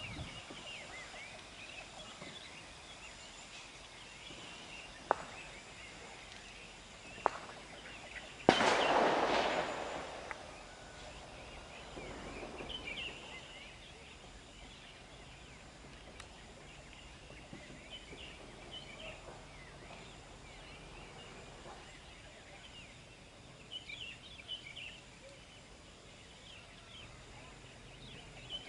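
Birds chirping, with two sharp clicks about five and seven seconds in. About eight and a half seconds in comes a loud, sudden bang whose rushing noise fades over about two seconds, followed by a softer rush a few seconds later.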